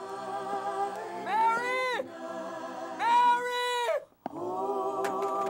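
Film score with a choir singing long held notes that swell twice; the sound drops out briefly about four seconds in.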